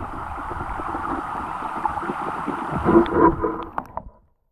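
Stream water rushing and gurgling over gravel, heard through a submerged GoPro's housing, muffled, with a few bubbly tones and clicks near the end before it cuts off suddenly.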